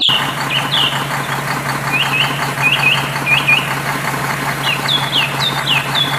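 Truck engine running steadily, with birds chirping in short, repeated glides over it.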